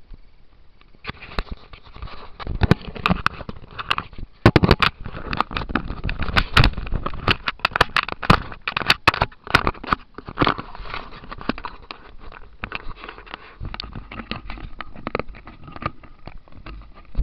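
Handling noise from a small action camera: irregular rustling, scraping and clicking as the camera rubs against clothing and a gloved hand, busiest in the first half.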